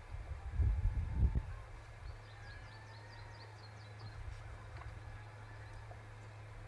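Low rumbling thumps for the first second and a half, then a steady low hum. A small bird gives a rapid series of short, high chirps from about two to three and a half seconds in.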